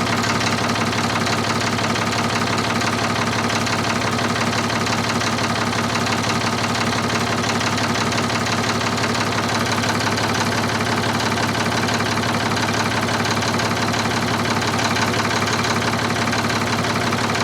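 Ford 4000 tractor engine idling steadily, still cold, just after a refill with fresh coolant.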